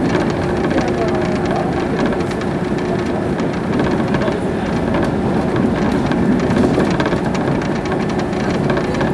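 Steady running noise of a train, heard from inside the passenger car as it travels along the line, with a faint steady hum.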